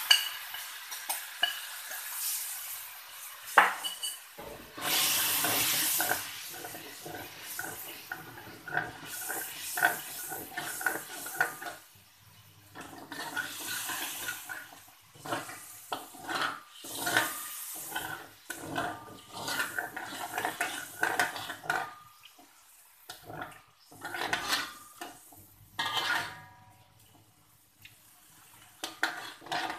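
Slotted metal spatula scraping and clinking against a metal wok as a thick chili paste is stirred, in irregular strokes with a ringing metallic tone. A sharp knock comes about three and a half seconds in, then a loud hiss a second or two later.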